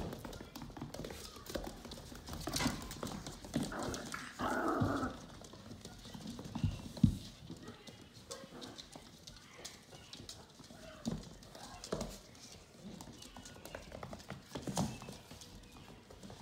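Vizsla puppies' claws clicking and scrabbling on a hardwood floor as they run and play, with one louder thump about seven seconds in.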